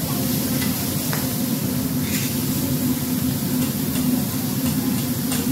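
Meat and seafood sizzling on a hot teppanyaki steel griddle, a steady hiss over a low hum, with a few faint clicks of the chef's knife and fork against the plate.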